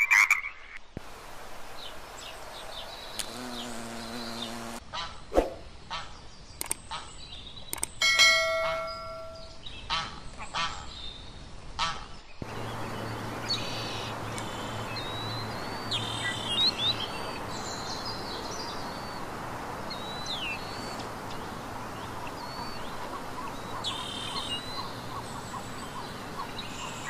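A treefrog's trilling call ends about a second in, followed by about eleven seconds of assorted short animal calls and clicks, including a pitched call near eight seconds. From about twelve seconds on, small birds chirp now and then over a steady outdoor hiss.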